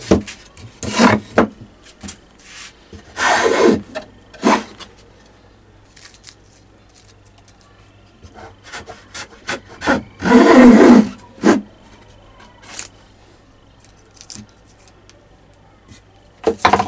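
Small wooden-bodied hand plane shaving the edge of a wooden strip: several scraping strokes, the longest and loudest about ten seconds in, with light knocks in between as the plane is set back on the wood.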